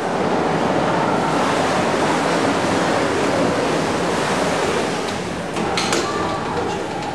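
1838 Maudslay 63-inch Cornish beam pumping engine running through a stroke: a steady rushing hiss, with a couple of sharp clicks near the end.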